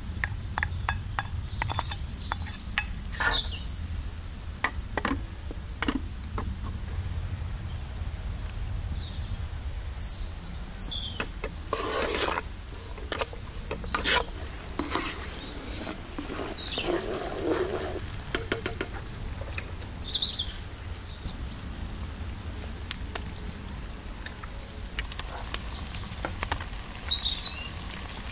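Diced onion sizzling in hot oil in a frying pan, stirred and scraped with a wooden spoon in runs of short clicks and scrapes, while small birds chirp now and then. Near the end, eggs are frying in bubbling oil.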